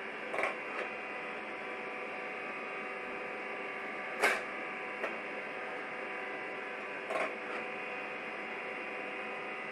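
Gene Cafe CBR-101 coffee roaster running empty as it preheats its roasting drum: a steady motor-and-fan hum with a short sharp click every three to four seconds.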